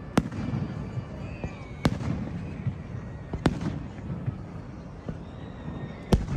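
Aerial fireworks bursting: four sharp bangs about a second and a half apart over a steady low rumble.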